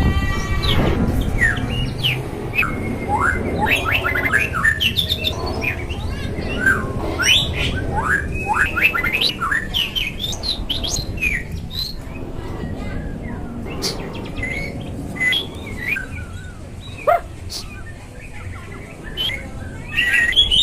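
Songbirds, a murai and a long-tailed shrike (pentet), singing in a quick, varied run of chirps, whistles and harsh notes, with a brief lull near the middle-late part.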